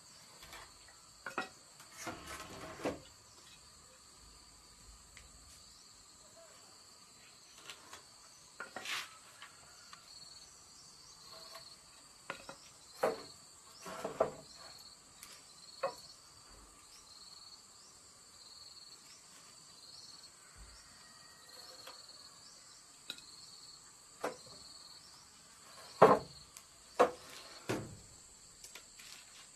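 Wooden boards knocking and clattering as they are handled on a concrete floor: a few sharp knocks scattered through, the loudest near the end as boards are shifted and laid. Behind them a steady high insect drone with a regular chirp about twice a second.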